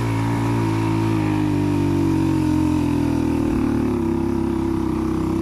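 Motorcycle engine running under way, heard close up from the rider's seat, its note shifting in pitch a couple of times.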